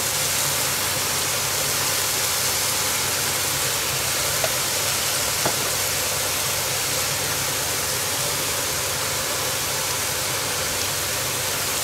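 Mushrooms, onions and bacon sizzling steadily in a frying pan, with a couple of faint clicks about halfway through.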